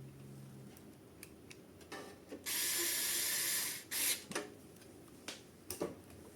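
Scattered light clicks and taps of hands and a screwdriver working on a PC case while the graphics card's bracket screws are tightened back in, with a loud steady hiss lasting about a second and a half near the middle.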